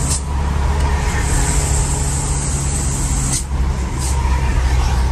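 Truck's diesel engine running steadily, with a high hiss from about one second in that cuts off sharply about three and a half seconds in.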